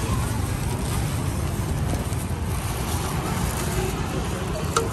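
Steady low rumble of outdoor background noise, with one short, sharp click near the end.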